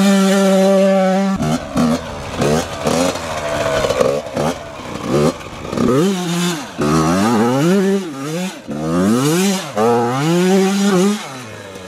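Yamaha YZ85 85cc two-stroke single-cylinder dirt bike engine revving hard. It is held steady for about a second and a half, then revved up and down again and again as the rear wheel spins and slides in loose sand.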